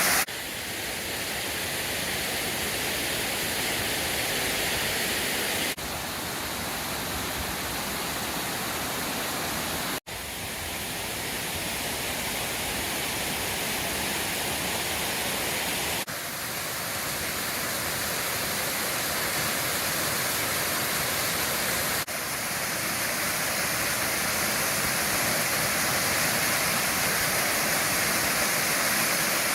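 Waterfall cascade on a mountain stream: steady rushing water. The level jumps abruptly a few times, with a split-second dropout about ten seconds in.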